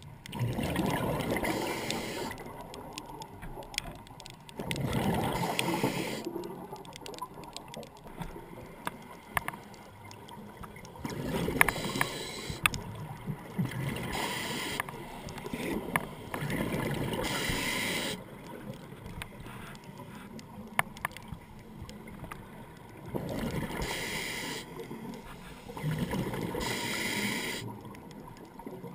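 A scuba diver breathing through a regulator underwater. Exhaled bubbles rush out in bursts about a second and a half long, several seconds apart.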